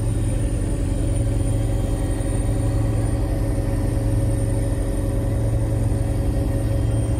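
Helicopter cabin noise in flight: the engine and rotor making a steady low drone with several constant tones over it.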